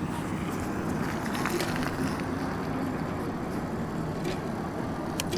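E-bike underway: a steady rush of wind and tyre noise with a low, even motor hum.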